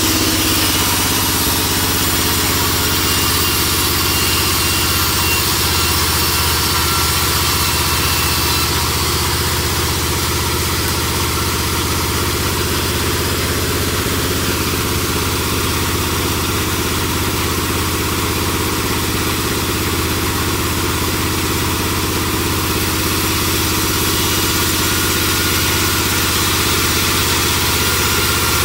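Large sawmill band saw running steadily, its drive making a constant machine drone.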